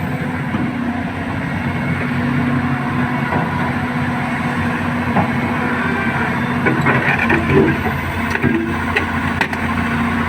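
Backhoe loader's engine running steadily at idle, with a few sharp metallic knocks in the second half.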